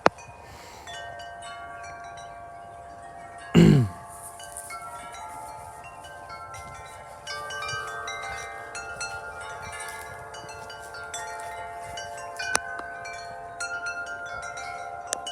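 Several wind chimes ringing in gusty wind, their tuned metal tubes sounding many overlapping, sustained notes that grow busier and louder about seven seconds in. About three and a half seconds in there is one brief, loud sound falling in pitch, and a sharp click near the end.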